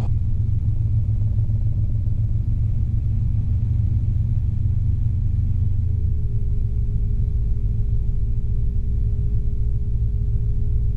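Robinson R22 helicopter's rotor and engine giving a steady low drone, heard inside the cabin during a practice autorotation. About six seconds in, a steady low-pitched warning tone comes on and holds: the low rotor RPM horn, the sign that rotor revs have dropped too low in the autorotation.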